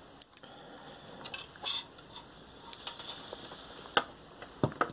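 Irregular light clicks and knocks of a partly assembled pellet extruder head (3D-printed plastic body, metal fittings, stepper motor) being handled and turned over on a wooden table, with sharper knocks just after the start, about four seconds in and near the end.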